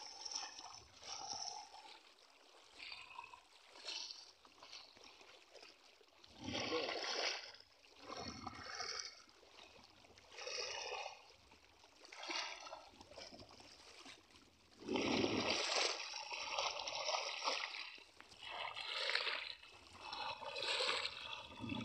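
People wading through knee-deep river water, legs splashing in irregular bursts every second or two, with one longer, louder stretch of splashing about two-thirds of the way through.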